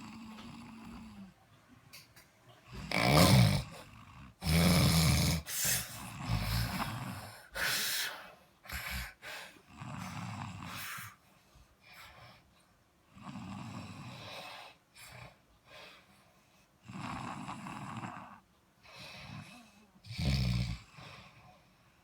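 Snoring during sleep: a rasping snore on the breaths, irregular, coming every few seconds, some snores much louder than others, the loudest a few seconds in.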